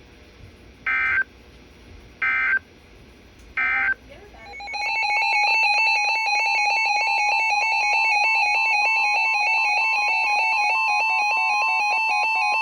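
Three short screeching Emergency Alert System data bursts, the end-of-message code closing the previous warning. About four seconds in, a loud steady Emergency Alert System attention tone fades up and holds.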